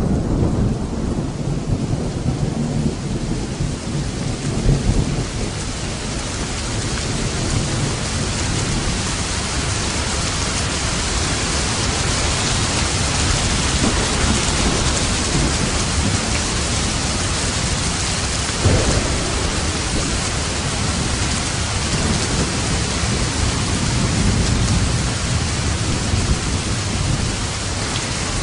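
Steady heavy rain, an even hiss, with low thunder rumbling in the first few seconds and one short crack of thunder about two-thirds of the way through.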